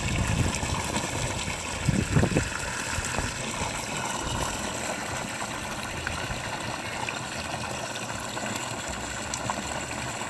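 Water rushing steadily from the discharge hose of a running 1/2 HP submersible sump pump, with a brief louder swell about two seconds in.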